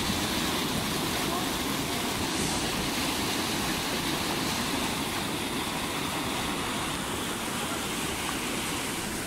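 Water pouring in a sheet over a concrete weir into a churning channel: a steady rushing of falling water.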